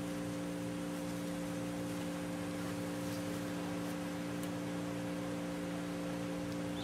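Steady electrical mains hum, a few fixed low tones over a constant hiss.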